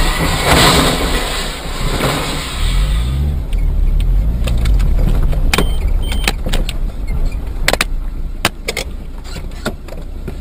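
Car driving on a rough road, heard from inside the cabin. Loud road and wind noise fills the first few seconds. Then the engine rises and falls in pitch while sharp clicks and knocks sound irregularly, as the car jolts over the bumps.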